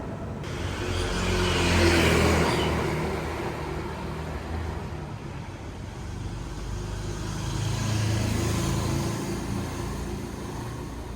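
A motor vehicle passes on a street with its engine running, loudest about two seconds in, then another passes more quietly later, over a steady background of traffic.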